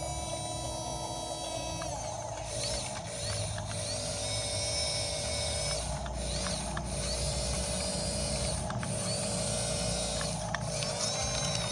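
Small electric motors and gears of a toy RC bulldozer whining, running in stretches of one to two seconds that stop and start again.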